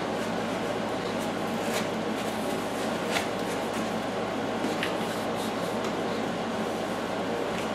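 Rustling and light knocks of foam and cardboard packing as 3D-printer parts are lifted out of a cardboard box, a few short clicks among them, over a steady background hum.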